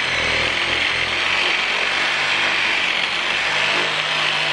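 Corded electric powered handsaw running steadily, its reciprocating blade sawing into a tree branch.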